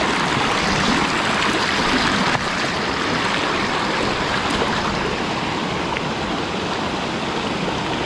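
Small headwater mountain stream running over rocks in shallow riffles: a steady, even rush of water.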